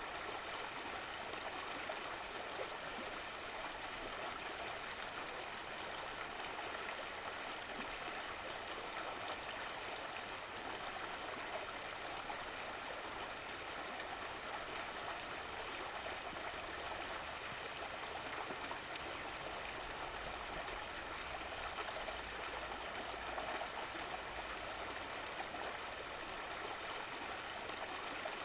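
Running water of a stream, a steady rushing and babbling flow with no breaks.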